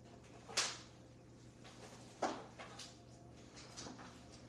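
A few sharp knocks, like a door or cupboard being handled: two clear ones about half a second and two seconds in, then fainter taps.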